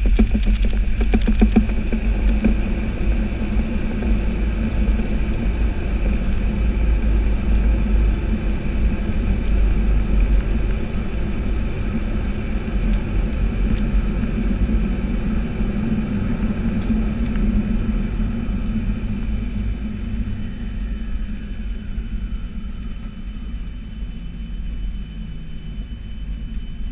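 Cockpit noise of an Airbus A320 decelerating on its landing rollout: a loud, steady rumble of wheels and engines that slowly fades as the aircraft slows, with a few rattles at the start. In the second half, a faint engine whine falls in pitch as the CFM56 engines spool down.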